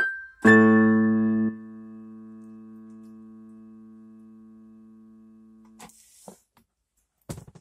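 A chord struck on a portable electronic keyboard, held loud for about a second, then dying away slowly over about four seconds. Near the end come a few clicks and a rustle.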